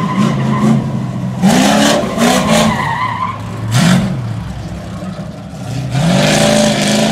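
Chevrolet C10 pickup's engine revving up and falling back over and over as it is driven hard through autocross cones, with tires squealing in the turns.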